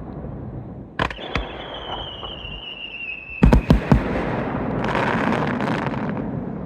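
Fireworks display: two sharp bangs about a second in, then a whistling shell whose pitch falls slowly for about two seconds. A cluster of loud bangs follows about three and a half seconds in, then a long rolling rush of noise.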